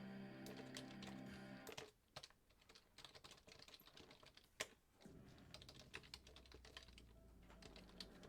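Faint typing on a computer keyboard, irregular clicks of the keys. Soft background music plays for the first two seconds, then stops.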